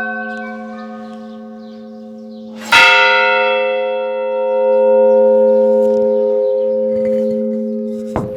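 Church bells ringing: a large bell's low hum sustains throughout, and a loud strike about three seconds in rings out with many overtones, fading slowly. A short sharp knock comes near the end.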